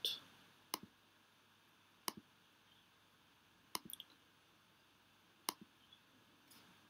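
Computer mouse clicks, sharp and scattered over quiet room tone: single and double clicks a second or two apart, with a quick run of several about four seconds in.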